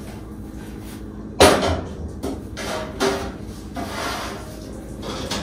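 A cooking pot set down on a gas stove's grate with one loud knock, then a few lighter clatters and scrapes as a baking sheet is picked up off the stovetop, over a steady low hum.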